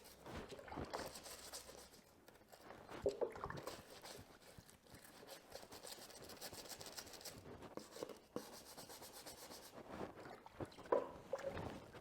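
Faint scuffing and light knocks of small brake parts being handled and cleaned by hand, with a louder knock about three seconds in and again near the end.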